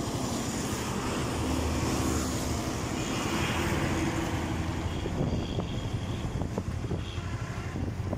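A bus driving past and pulling away, its engine running over the steady sound of tyres and road traffic.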